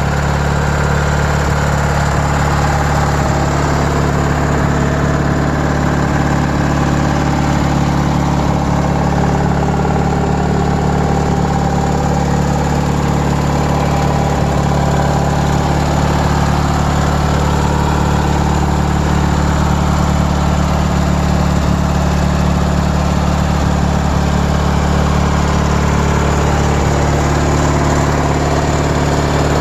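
The engine of a 1997 MTD Yard Machines 42-inch riding lawn mower running at a steady, even speed.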